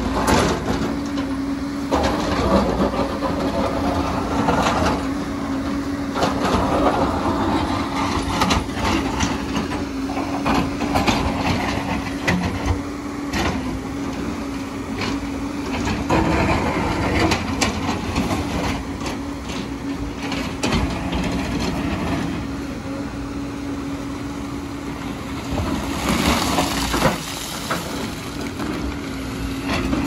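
JCB tracked excavator working, its diesel engine running with a steady hum while the bucket scrapes and digs into a layered rock face. Frequent knocks and clatter of breaking rock are heard throughout.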